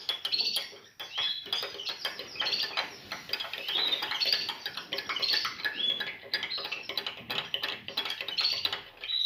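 Caged songbirds chirping and twittering rapidly and continuously, with a spoon clicking and clinking against a glass, as if turmeric is being stirred into water.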